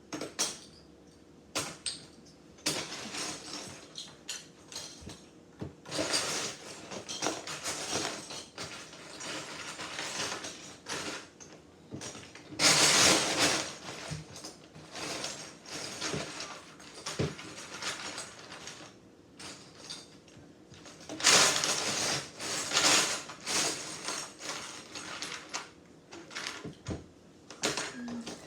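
Loose Lego bricks rattling and clicking as someone sifts through a pile and handles and snaps pieces together, in irregular spells with two louder stretches of rummaging, about halfway through and again about three-quarters in.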